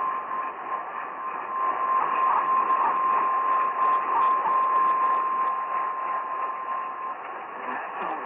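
Emergency alert tone for a severe thunderstorm warning: a single steady tone, like a weather radio's warning alarm, heard through heavy radio static from a weak, distant signal. The tone cuts off about seven seconds in, leaving only the static.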